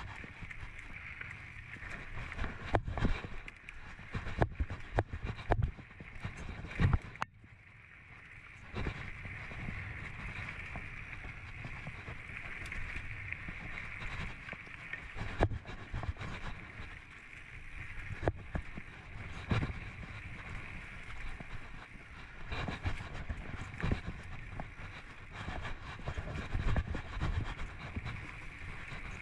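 Giant Anthem mountain bike rolling fast over a dry dirt trail: tyre rumble with frequent sharp knocks and rattles as it hits bumps and roots, over a steady high-pitched buzz that drops out briefly around seven seconds in.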